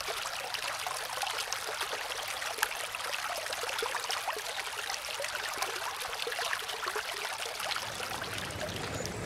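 Shallow stream running over rocks: a steady trickling babble with many small bubbling splashes and no deep rumble.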